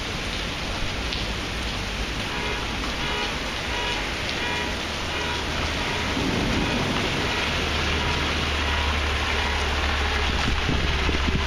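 Heavy rain pouring down on pavement and parked cars in a severe thunderstorm, a steady dense hiss. A low rumble underneath grows louder from about halfway through.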